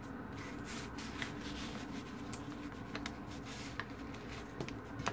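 Paper rustling and light handling as small paper cards are shuffled and flipbook pages are pressed flat, with a few soft clicks, over a faint steady low hum.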